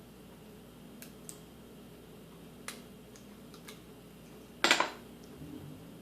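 Small hand tools and parts handled on a work surface: a few faint clicks and taps, then one louder, brief metal clatter about four and a half seconds in.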